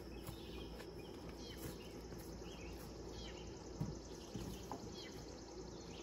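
Faint garden ambience: insects trilling steadily and birds chirping now and then, with a couple of soft low thumps near the middle.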